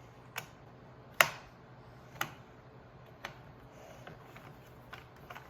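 Sharp clicks and taps of a screwdriver and the plastic toy being handled while its screws are worked out: about five separate clicks spaced roughly a second apart, the loudest about a second in.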